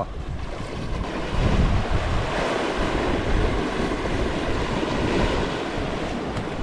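Sea swell surging and washing over rocks along a rocky shoreline, with foam churning. Wind buffets the microphone with low rumbles.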